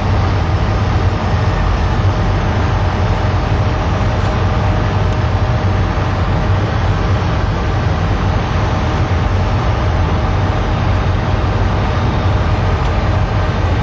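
Steady drone of a Boeing 737 in flight as heard inside the cabin: engine and airflow noise with a strong low hum and faint steady tones above it, unchanging throughout.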